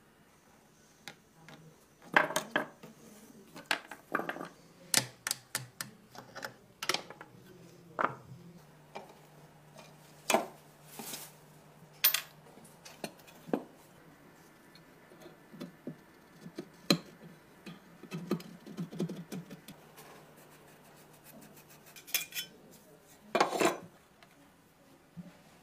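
Metal parts of an airsoft gun being handled and taken apart by hand: scattered clicks, clinks and short scrapes of metal on metal, with a longer rasping scrape near the end.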